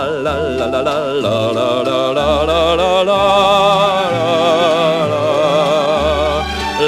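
A man singing a cabaret song over orchestral accompaniment, holding one long note with a wide vibrato through the second half while separate bass notes sound underneath.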